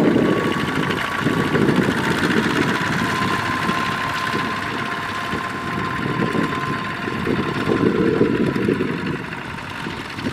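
Two-wheel walking tractors' single-cylinder diesel engines running steadily under load as they pull trailers loaded with rice sacks, with a fast, even chugging pulse.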